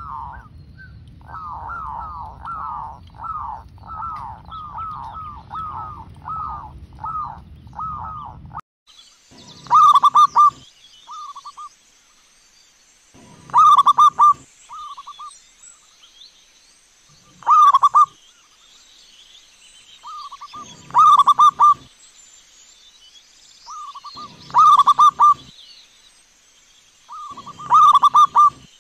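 Zebra dove (perkutut) cooing. First comes a fast run of short staccato coos, about two a second. After an abrupt change about nine seconds in, loud cooing phrases repeat roughly every three and a half seconds, each followed by a short softer note, over a steady high whine.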